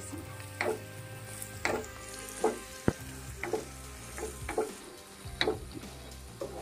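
Wooden spatula stirring and scraping onion-tomato masala with spice powders around a nonstick kadai while it sizzles in oil. There is a scrape roughly every second, with one sharp knock about three seconds in.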